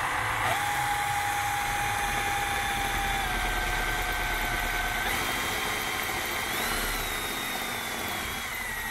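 Handheld drill motor whining steadily as it bores up through a plastic checker-plate bonnet panel. Its pitch shifts up and down a few times.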